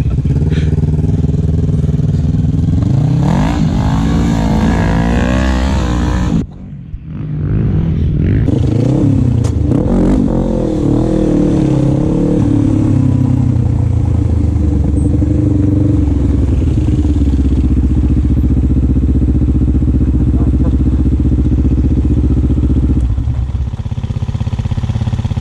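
Quad bike engine, heard close up from the rider's seat, revving up with a rising pitch about three seconds in, cutting out briefly, then accelerating again and running steadily at speed, with a shift in note near the end.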